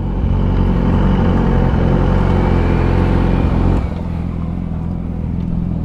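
Motorcycle engine running at low speed while parking, steady in pitch, then settling to a quieter idle a little under four seconds in.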